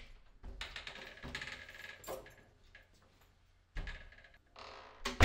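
Keys jangling and rattling in a lock as an apartment door is unlocked and opened, with a few knocks of the door and footsteps, then a loud thud near the end.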